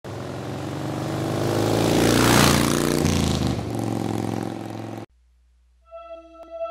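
Motorcycle engine revving, rising to a peak a little over two seconds in, then falling away and cutting off suddenly about five seconds in. Electronic music with a steady beat starts near the end.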